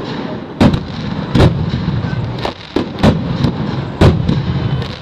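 Aerial firework shells bursting in a string of sharp bangs, roughly one a second, the loudest about half a second, a second and a half, three and four seconds in, over a steady low rumble of the display.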